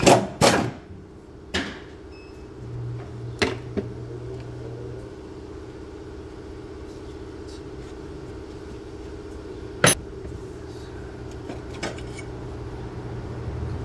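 Sharp metallic clanks and knocks of tools and parts handled in a car's engine bay: two close together at the start, a few more over the next few seconds and a single loud one about ten seconds in. A steady low hum runs underneath.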